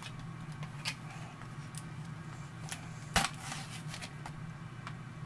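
A Pringles can being opened by hand: scattered small clicks and crinkles from the plastic lid and foil seal, with one sharper snap about three seconds in.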